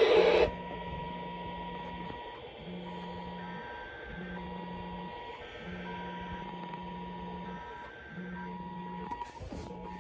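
Phone's Wireless Emergency Alert attention tone: a two-tone beep near 1 kHz repeating in a long–short–short pattern (about two seconds, then two one-second beeps, with short gaps), with a low buzz sounding along with each beep. A burst of noise cuts off about half a second in.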